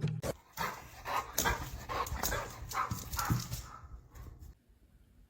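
A dog vocalising in a quick, irregular string of short barks and whines that dies away after about three and a half seconds.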